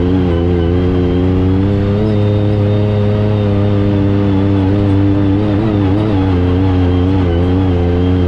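Yamaha YXZ1000R side-by-side's three-cylinder engine running at moderate revs, its note dipping and rising every second or two with throttle changes.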